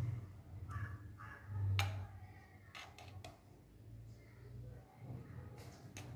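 A few faint clicks of a metal spoon against a steel pressure cooker as ghee is spooned onto cooked rice, over a low hum.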